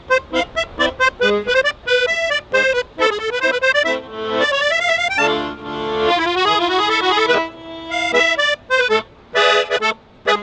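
Piano accordion played live: a lively tune of quick, short notes, with a few longer held chords in the middle, breaking off near the end.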